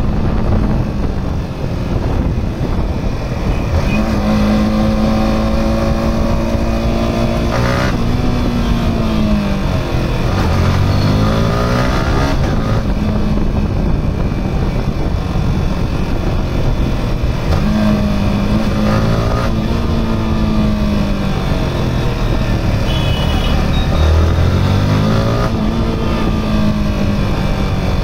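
Yamaha R15M's single-cylinder engine, heard from the rider's seat while riding. Its pitch rises and falls repeatedly as the bike accelerates, holds high revs and slows. There is a steady high-rev stretch about a quarter of the way in that breaks off suddenly, then falling and rising glides, and another held stretch about two-thirds in.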